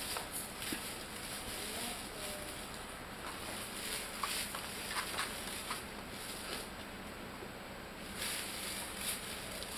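Young puppies moving about, their paws and claws pattering and scrabbling, with scattered small clicks and taps over a steady hiss.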